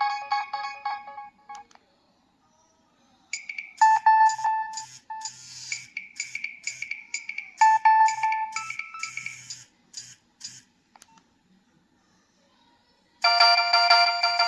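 Nokia 3120b mobile phone playing its preloaded ringtones one after another: one tune ends in the first two seconds, a second plays from about three seconds in until about ten and a half, and a third starts near the end.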